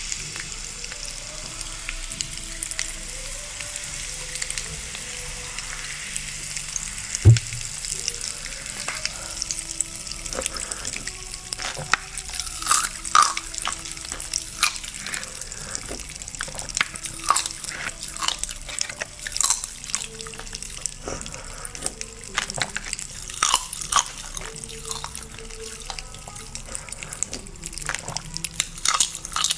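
Ice crackling and fizzing, then many sharp cracks and clicks as frozen ice cups are handled, with a single heavy thump about seven seconds in. Faint background music underneath.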